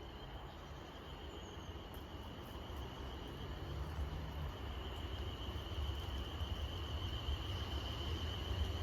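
Class 444 electric multiple unit approaching, a low rumble slowly growing louder, with a steady high-pitched whine throughout.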